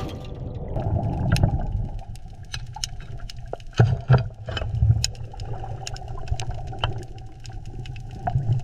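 Low steady mechanical rumble like a running engine, with scattered sharp metallic clicks and knocks, the loudest about four and five seconds in.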